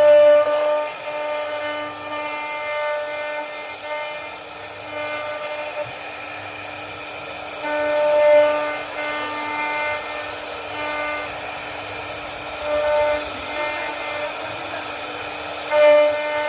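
CNC router spindle whining as it carves wood. It holds one steady pitch while its higher overtones swell and fade in stretches of a second or two as the bit works through the cut.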